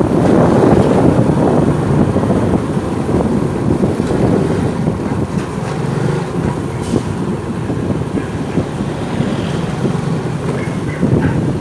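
Motorcycle on the move: steady wind buffeting the microphone over a low rumble of engine and road noise.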